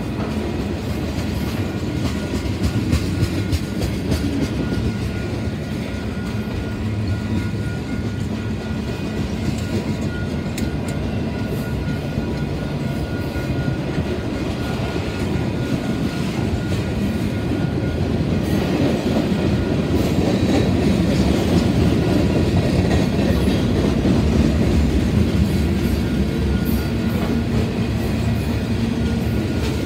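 Freight cars rolling past at track speed, tank cars giving way to covered hopper cars, with the steady run of steel wheels on rail and their clacking over the rail joints. It grows louder for a while after the middle.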